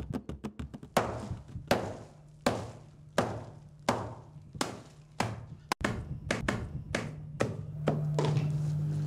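A steady series of sharp knocks, about one every three-quarters of a second, each ringing briefly, over a low steady hum that grows louder near the end.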